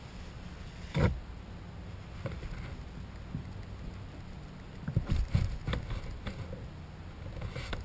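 Knocks and rustles from someone moving close to a handheld camera's microphone: one sharp knock about a second in, a quick run of knocks and rustles around five seconds in, and a few more near the end, over a steady low rumble.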